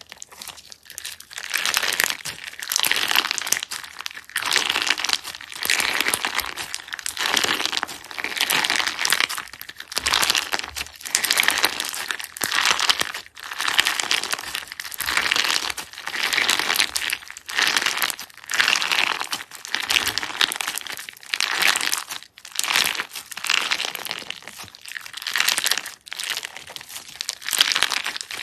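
Slime being squeezed and pressed by hand, crackling and crinkling in repeated bursts about once every second or so.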